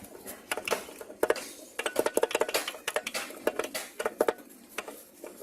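Irregular metallic clicking and clinking from a part of a stripped Toyota Vios engine's bottom end being rocked by hand: the knock of free play in a worn bearing. The clicks come thick and fast through the middle.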